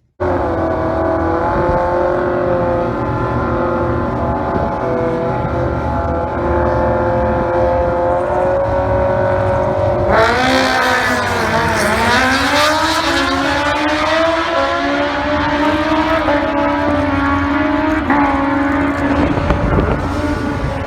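Turbocharged Suzuki Hayabusa drag bike engine running loud. It holds a steady pitch for about ten seconds. Then, with a burst of hiss, the revs dip and climb back up to a steady higher pitch.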